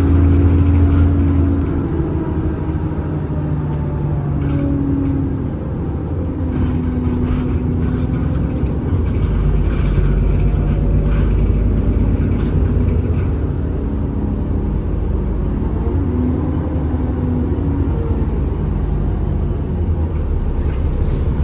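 Alexander Dennis Enviro400 (E40D) double-decker bus's diesel engine and driveline running. The engine hum rises and falls as the bus moves, with short whining tones that come and go.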